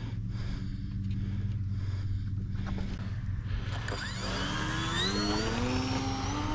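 Electric motor and propeller of a HobbyZone Apprentice S trainer plane spinning up for takeoff about four seconds in: a whine that rises in pitch and then holds, over a steady low hum.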